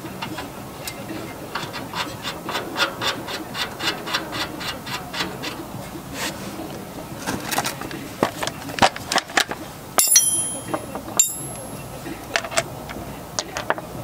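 Hand tools working on the truck: a ratchet-like run of clicks, about three or four a second, then scattered clicks and two sharp metallic clinks that ring, about ten seconds in.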